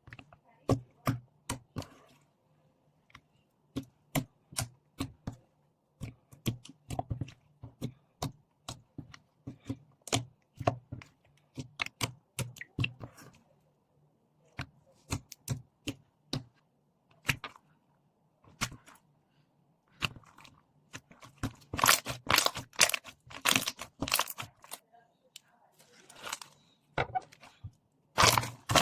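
Slime being squished, stretched and pressed by hand, giving a run of sticky clicks and pops, denser crackling near the end.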